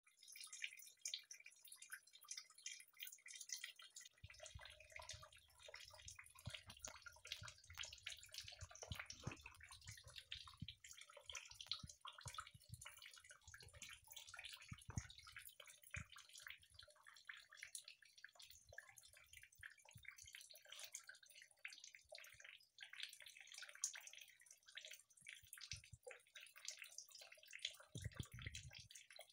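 Faint, irregular dripping and splattering of water leaking from a burst fitting on a water heater's supply connection, spraying and running down onto the tank.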